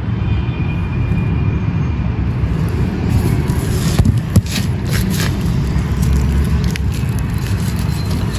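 Strong wind buffeting the microphone as a steady, loud rumble. A few crisp crackles come through it around the middle, from dry texture chunks being crumbled.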